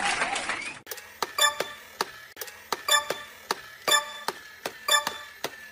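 Steady, regular ticking, about two ticks a second, each tick carrying a brief bright ring. It starts about a second in, after a short wavering sound that cuts off abruptly.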